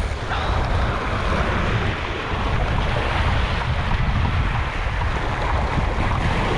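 Sea surf washing over rocks, with wind buffeting the microphone as a steady low rumble.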